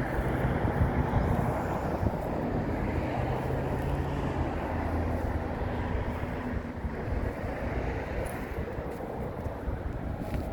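Outdoor road-traffic noise: a steady rush that swells and fades over the middle, over a low vehicle hum that stops about halfway through.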